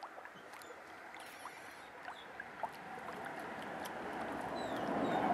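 Water-like bubbling and gurgling noise that swells toward the end, with a few faint clicks and short falling chirps.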